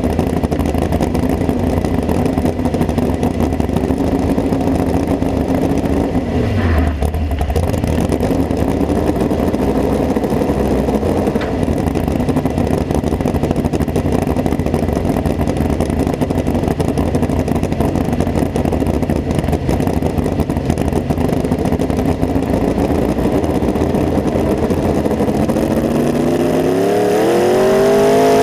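Modified mini pulling tractor's engine idling unevenly through its open exhaust stacks, then revving up about two seconds before the end and holding at higher revs, louder, as the pull gets under way.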